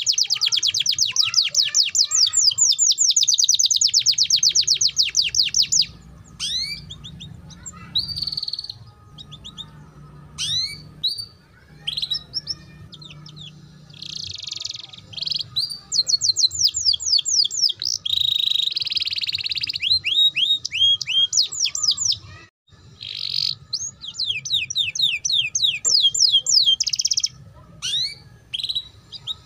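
Domestic canary singing in long, fast trills of repeated high chirps, broken by short pauses between phrases. This is the rolling 'ngeriwik' canary song style.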